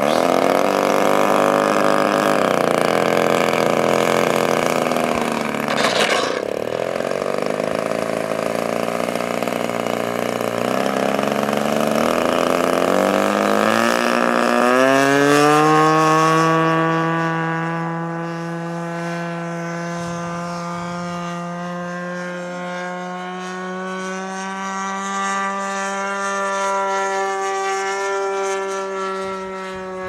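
Single-cylinder DLE 20cc two-stroke gasoline engine of a radio-controlled T-6 Texan model airplane, with its propeller. It runs unevenly at low throttle while taxiing, then about 13 s in the throttle opens and the pitch rises quickly to a steady high full-power drone for the takeoff. The drone grows fainter as the plane moves away.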